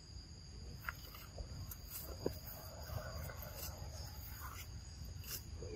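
Steady high-pitched drone of insects in the forest, two constant tones over a low background rumble, with a few short clicks and rustles, the sharpest a little over two seconds in.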